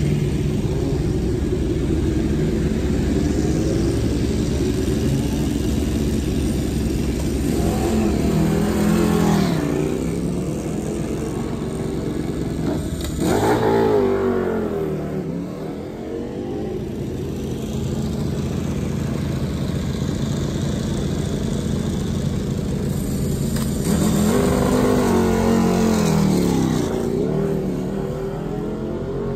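Race superbike engines idling with a steady throb, revved up and back down three times: about a third of the way in, near the middle, and again near the end.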